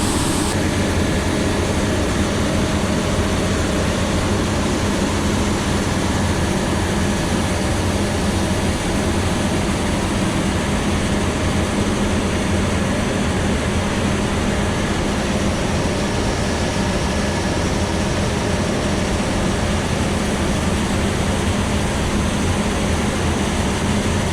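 Heavy farm machinery engine running steadily, a constant low hum that holds level throughout.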